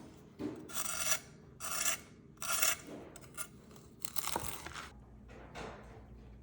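Three rasping strokes, each about half a second long and evenly spaced, then a few lighter, shorter scrapes and a brief knock.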